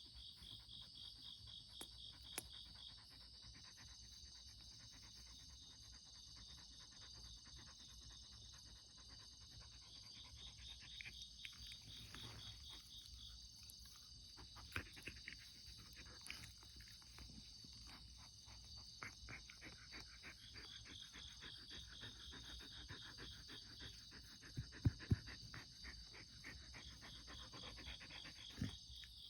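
Crickets and other night insects chirping faintly and steadily, in repeated trains of rapid pulses. There are a few soft clicks, and two sharp knocks a little before the end.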